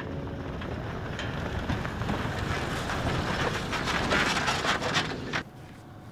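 Four-wheel drive driving past close on a dirt bush track: engine and tyre noise building as it nears, then cutting off suddenly about five and a half seconds in.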